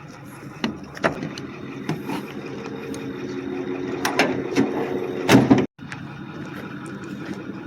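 Knocks and clanks from a vending machine being loaded and strapped down in a pickup truck bed, over a steady low hum; the sound drops out for a moment about two-thirds of the way through.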